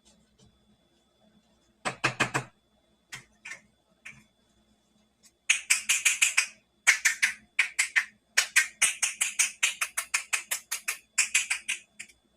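Plastic toy pieces and packaging being handled during an unboxing, giving sharp clicks and crackles. There is a short cluster about two seconds in and a few single clicks, then from about halfway dense runs of quick clicking that stop just before the end.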